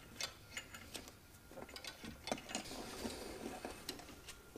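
Scattered small clicks and rustling as an electrical wire is handled and routed along a tractor's frame and hydraulic lines, busiest in the middle.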